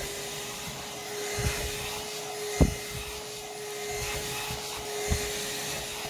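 Moolan cordless stick vacuum in handheld mode running at a steady pitch, its nozzle working over fabric couch cushions. Three dull knocks come along the way.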